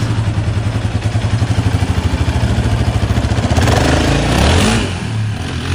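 Sport quad's engine idling with a fast, pulsing beat, then revving up as the quad pulls away about four seconds in.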